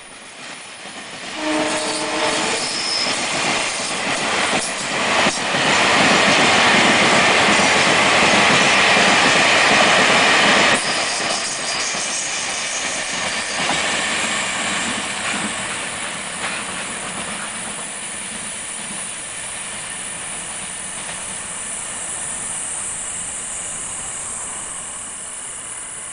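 Freight train of hopper wagons rolling past, wheels clattering on the rails, loudest for several seconds before dropping suddenly as the last wagon goes by, then fading as the train draws away. A brief horn note sounds about two seconds in.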